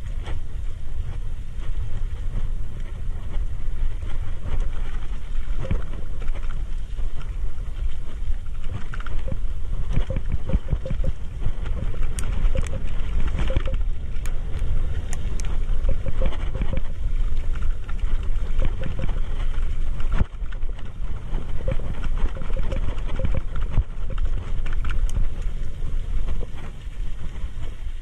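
Mountain bike ridden fast over a dirt trail: heavy wind buffeting on the microphone over tyre noise, with the bike rattling and clicking over bumps.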